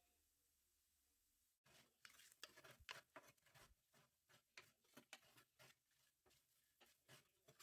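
Faint, irregular clicking and tapping of kitchen utensils during food preparation, starting abruptly about a second and a half in.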